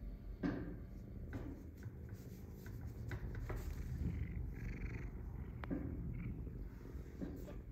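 Domestic cat purring steadily, close to the microphone, while being poked and handled. A few soft taps and rustles come through over the purr.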